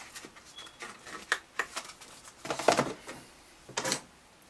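Packaging being handled: several short scrapes, taps and rustles as the documents packet is set back into the box's moulded tray and the contents are tidied away.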